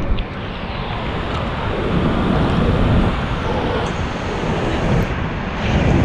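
Wave pool water churning and sloshing right against a half-submerged camera: a loud, steady rush of water noise.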